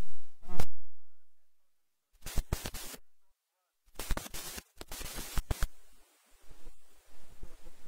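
Several bursts of harsh crackling noise, broken by gaps of dead silence: garbled audio from a remote call link that keeps dropping out.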